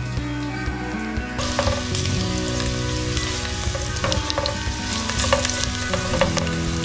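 Garlic sizzling as it fries in hot cooking oil in a pan, with the clicks and scrapes of a utensil stirring it. The sizzle grows suddenly louder about a second and a half in.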